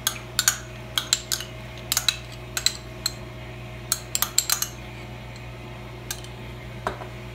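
A metal spoon clinking and scraping against small ceramic bowls while scooping thick yogurt out. Quick runs of sharp clinks come over the first few seconds, then two lone taps near the end.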